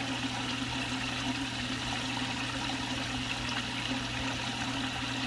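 Steady rush of water circulating in an aquaponics fish tank, with a low steady hum underneath.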